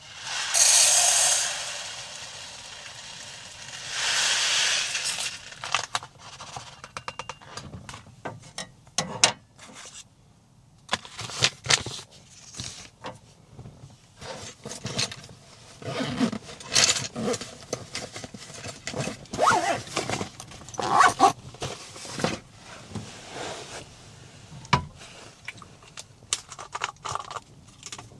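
Two short hissing or rustling noises in the first five seconds, followed by a run of irregular clicks, knocks and scraping as small objects are handled.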